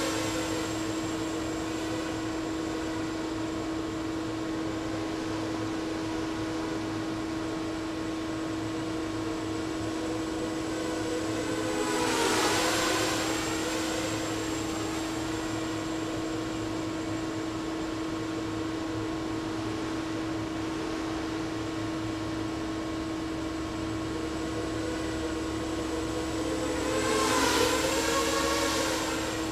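Diatone 250 racing quadcopter flying laps, its motors and propellers buzzing louder as it passes close twice, about 12 seconds in and again near the end, the pitch bending up and down with each pass. A constant steady hum runs underneath.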